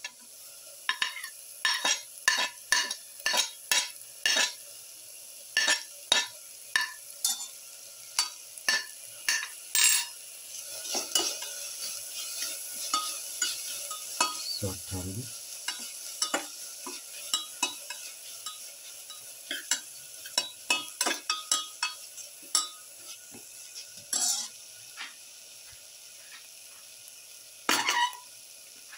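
Metal slotted spoon scraping and knocking against a pan as it stirs sliced onions and crushed ginger-garlic, over a steady sizzle of the frying. The spoon strokes come thick and irregular, thin out for a few seconds near the end, then one last louder scrape.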